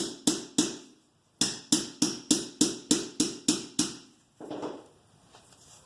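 Rapid, regular sharp taps with a short ringing tail, about three a second, pausing briefly about a second in and stopping around four seconds in, then a soft rustle.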